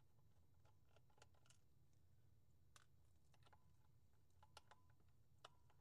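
Near silence with faint, scattered small clicks of a precision screwdriver turning small screws in the plastic case of a handheld digital multimeter.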